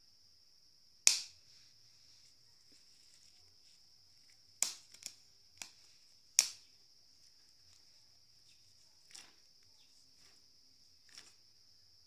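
Sharp, scattered pops and crackles from maize cobs roasting over a charcoal grill, about seven in all, the loudest about a second in and two more near the middle. Steady high-pitched chirring of crickets underneath.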